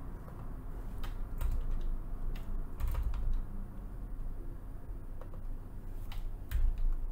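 Computer keyboard being typed on in a few short, scattered runs of keystrokes with pauses between, over a low steady hum.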